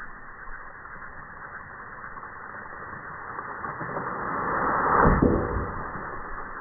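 Slowed-down, muffled sound of the steel-plate target stand toppling over after the bullet strikes: a deep rumble that swells to a dull boom about five seconds in and then fades.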